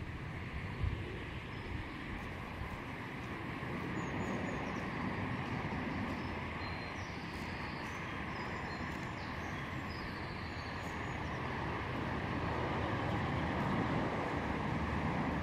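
Steady outdoor background rush, like distant traffic, swelling slowly and easing off, with a few faint bird chirps above it.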